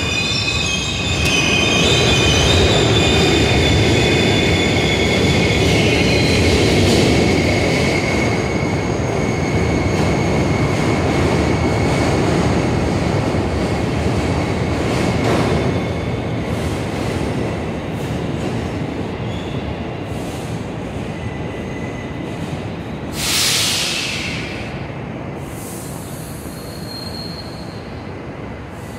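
New York City subway train moving along the terminal tracks: a heavy rumble of wheels on rail with a high, steady wheel squeal over the first half, dying away as the train draws off. A brief hiss sounds about two-thirds of the way through.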